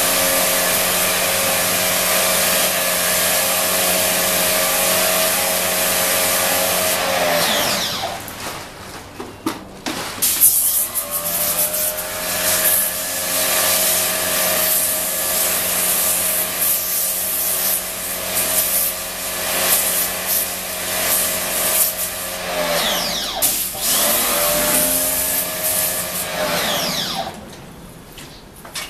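Electric high-pressure washer running with its water jet spraying: a steady motor hum under a hiss of spray. The motor winds down with falling pitch about seven seconds in, starts up again a few seconds later, dips briefly near the end, then winds down again as the gun trigger is released.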